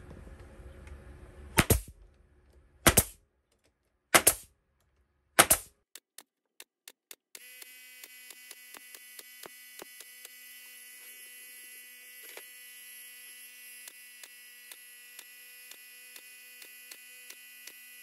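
Pneumatic stapler firing staples into the wooden joints of beehive frames. Four loud sharp shots come about a second and a half apart, then a long run of quicker, fainter shots over a steady hum.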